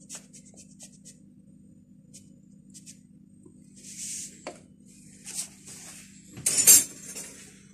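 Light clinks and taps of a small spoon and hands at a plastic blender jar, then a louder plastic clatter about six and a half seconds in as the blender's lid is fitted on, over a faint steady hum. The blender motor is not running.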